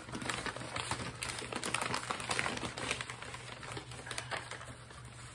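Newspaper packing rustling and crinkling as an orchid plant is unwrapped by hand: a dense, uneven run of small crackles.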